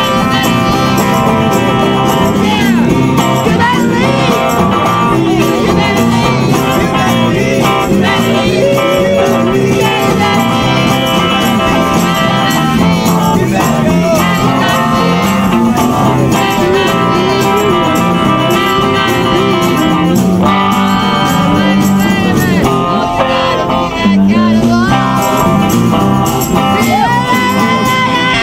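A live group sing-along: several guitars, electric and acoustic, strummed together while a lead singer and a group of voices sing a rock-and-roll song.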